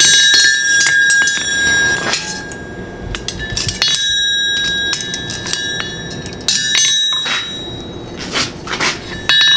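Hand hammer striking a red-hot horseshoe on a steel anvil: several blows at uneven intervals, each leaving the anvil ringing.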